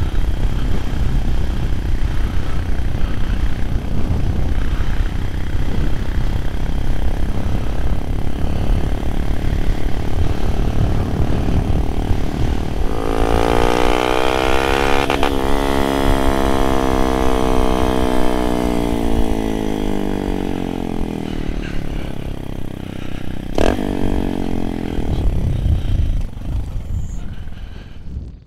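Honda Monkey 125's single-cylinder engine running while riding, under heavy wind rumble on the microphone. Roughly halfway through, a clear engine note comes up, shifts in pitch for several seconds and then fades.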